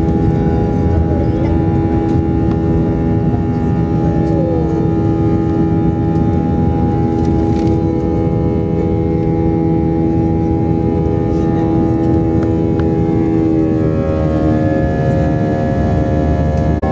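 Aeroplane engines running with a loud, steady drone and several held tones, which shift to a new set of pitches about 14 seconds in, as when the engine power setting changes.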